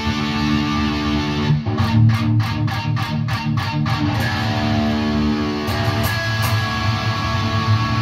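Electric guitar, a Mayones Hydra Elite, played through a PRS MT15 tube amp head with 5881 power tubes. Chords ring out, broken in the middle by a quick run of about ten sharply picked notes, roughly four a second.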